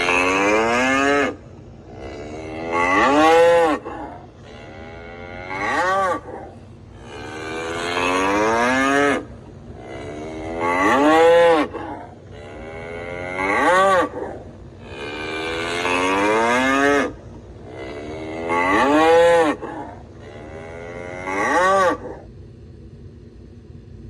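A bull bellowing over and over, about nine calls each one to two seconds long, coming every two to three seconds. Each call rises and then falls in pitch, and the calls stop near the end.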